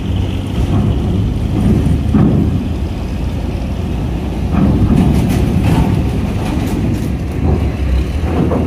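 Diesel engine of a box truck rumbling as it drives off a ferry ramp onto the steel-grated dock and passes close by, with a few clanks and rattles from the ramp and grating midway.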